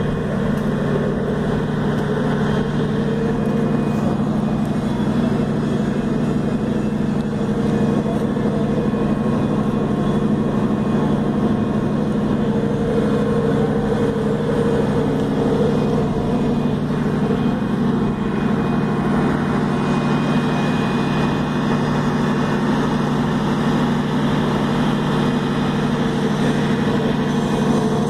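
Steady drone of a ship's engines and deck machinery, loud and unbroken, with a constant low hum.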